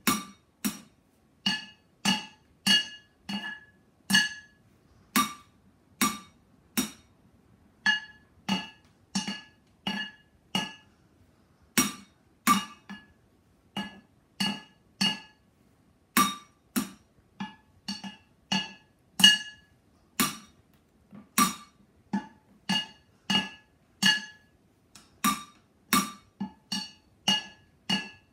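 Drumsticks beating on upturned cooking pots as improvised drums: a steady run of sharp metallic hits, roughly two a second, each ringing briefly with a clanging tone.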